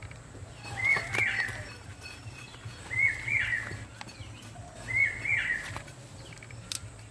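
A bird calling three times, about two seconds apart, each call a short high warbling phrase.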